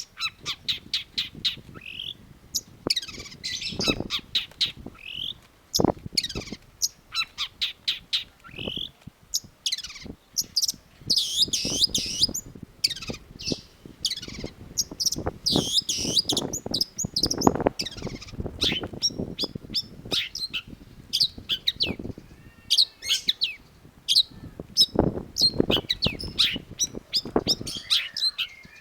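Long-tailed shrike singing a fast, varied song of rapid repeated chirps and whistled phrases mixed with harsher notes.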